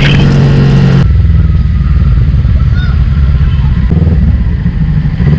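Motorcycle engine running through an Austin Racing aftermarket exhaust, a loud low rumble. About a second in, the sound changes abruptly and the higher, brighter part drops away, leaving mostly the deep exhaust note.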